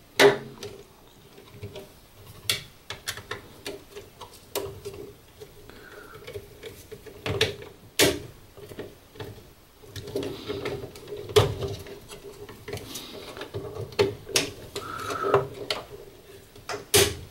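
Irregular clicks and taps of a screwdriver and fingers working the screw terminals of a plastic plug-in relay and its socket, with a few sharper, louder clicks among them.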